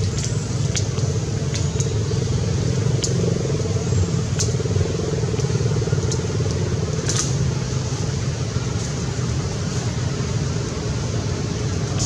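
A steady low mechanical drone with a few faint, sharp ticks scattered through it.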